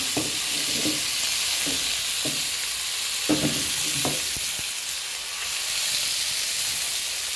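Duck eggs and marinated pork frying in hot lard in a pan, with a steady sizzle. A spatula and ladle knock against the pan a few times in the first half.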